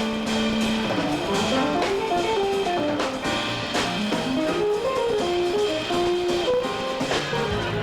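A jazz quartet playing live, with a guitar playing a quick single-note melody line that runs up and down over the band.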